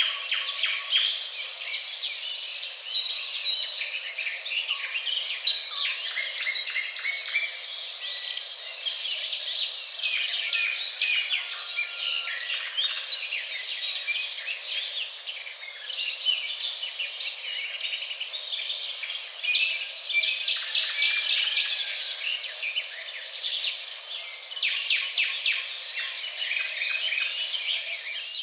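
Songbird chorus: several birds chirping and trilling over one another in many short, overlapping calls, cutting off abruptly at the end.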